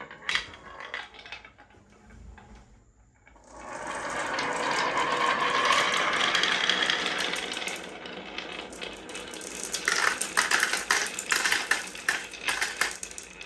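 Marbles running through a marble run: a few scattered clicks, then a steady rolling rush for about four seconds, then quick clicking and clattering as marbles drop and knock together.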